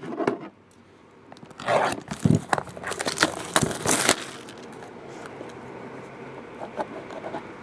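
A cardboard trading-card box being handled and opened by hand. From about a second and a half in to about four seconds in there are sharp clicks with rustling and scraping as the white inner box is slid out of its black sleeve. After that only a faint steady hum is left.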